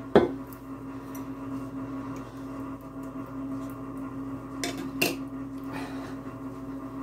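Clinks and knocks of a glass sauce jar and its lid against a pot as thick Alfredo sauce is tipped out onto pasta. A sharp clink comes just after the start, and a few lighter ones about five seconds in.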